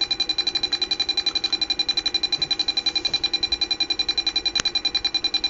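Small speaker driven by an Arduino Mega2560 playing a buzzy electronic tone that pulses evenly about a dozen times a second. A single faint click comes about four and a half seconds in.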